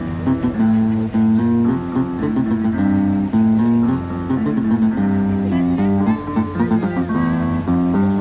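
Guitar-like plucked melody over a bass line, played by touching carrots, lemons and other vegetables that are wired up as the keys of an electronic instrument.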